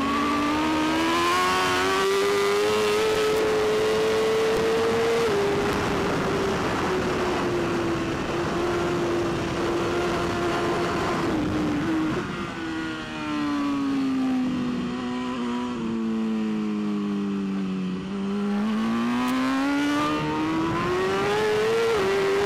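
Onboard sound of a superbike engine at race pace. It revs up through the gears for about five seconds and holds high. About halfway it drops sharply and winds down for several seconds under braking, then climbs hard again near the end.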